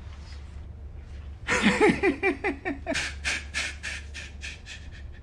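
A man laughing: a loud burst of quick pitched 'ha' pulses starts about a second and a half in, then trails into breathy, hissing pulses at about four a second.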